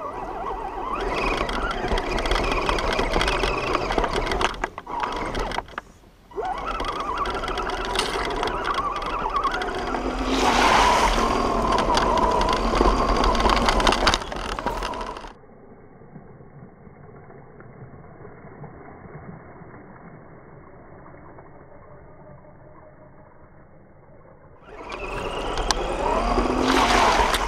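Radio-controlled 4WD scale crawler heard from its onboard camera as it drives over gravel: its motor and gears whine, rising and falling in pitch with the throttle, over the crunch of tyres on loose stones. About halfway through the sound drops to a quiet, muffled hum for around ten seconds, and the motor whine returns loudly near the end.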